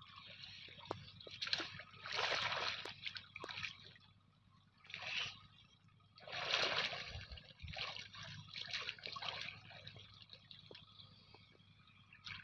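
Pond water sloshing and splashing in irregular bursts as a man wades chest-deep and moves his arms through it, with small drips and clicks in between.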